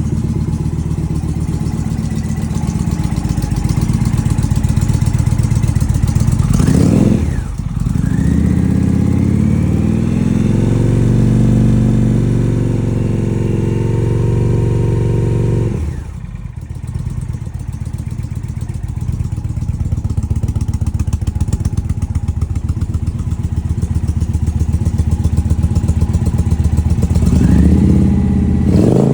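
Indian Challenger's liquid-cooled V-twin running at idle, revved up about seven seconds in and held higher, dropping back to idle around sixteen seconds, then revved again near the end. The exhaust pipe joint has just been sealed with high-temperature Permatex to cure an exhaust leak.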